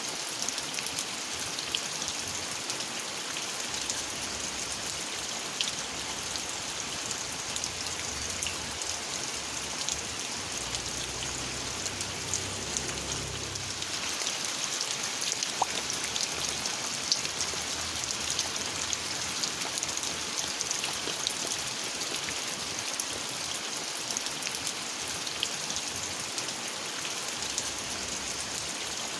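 Steady rain falling, with many separate drops ticking on surfaces. A brief low rumble comes about halfway through.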